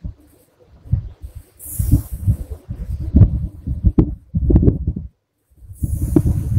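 A sleeping woman snoring, a low, rapid fluttering rattle as her lips flap on the out-breath, with a breathy hiss at the start of the longer breaths. The breathing breaks off just after five seconds in and starts again about half a second later.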